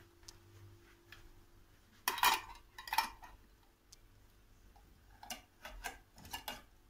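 Glass jars of milk knocking and clinking on a kitchen counter while blue plastic lids are put on them: a few sharp clicks, the loudest about two seconds in, then a quick run of smaller ones near the end.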